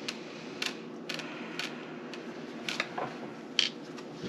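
Small plastic game pieces clicking onto a board-game board, a handful of sharp irregular clicks over a low steady hum.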